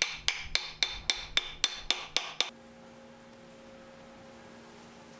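A hammer tapping a homemade driver tool to seat a pilot bearing in the end of a crankshaft: about ten sharp, ringing taps, about four a second, that stop about two and a half seconds in as the bearing goes home. A faint steady hum follows.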